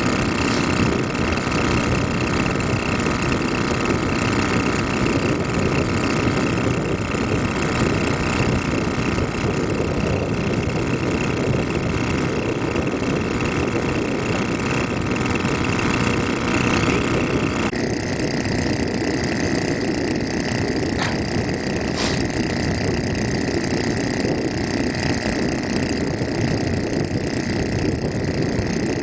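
Rice transplanter's engine running steadily, with several steady machine tones over it. The sound changes abruptly about two-thirds of the way through, the higher tones dropping away, and two short clicks follow.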